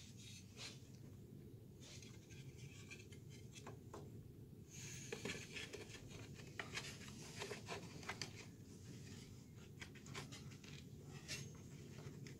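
Faint scraping, rubbing and light clicks of a thin wooden sill cover being handled and pressed into place on a window sill, busier from about five seconds in.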